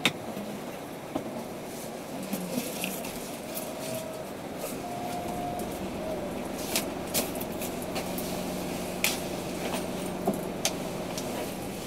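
Car cabin noise with the car in use: a steady rumble with scattered light clicks and ticks, and a low steady hum that sets in about halfway.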